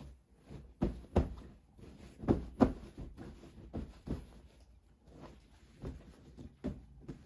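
Irregular knocks and taps of objects being handled and set down, about nine in all, the loudest pair a little over two seconds in.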